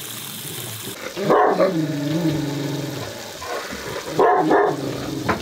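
A dog barking and growling at another dog: a loud bark about a second in, drawn out into a long growl, and another bark about four seconds in. It is warning the other dog off its raised spot, the ordinary rank communication among a pack of farm dogs. Before that, a hiss of water spraying from a leaking hose fitting stops suddenly about a second in.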